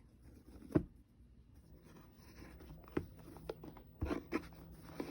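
Packaging being unwrapped by hand: soft rustling of paper or wrapping with a few light knocks and clicks as the box is handled.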